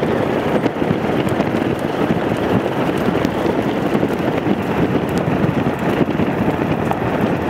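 Steady wind rush on the microphone over the tyre and road noise of a Nissan Pathfinder towing an off-road caravan at speed on a corrugated dirt road, with a few faint ticks.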